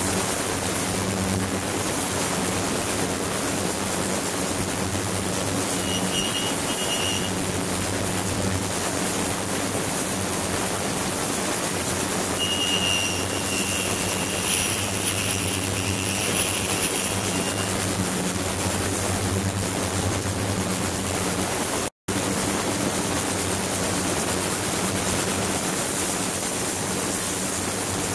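Ultrasonic tank running: a steady hiss of water agitated by ultrasound, with a thin high-pitched whine and a low hum underneath. The sound cuts out for an instant once, a little over twenty seconds in.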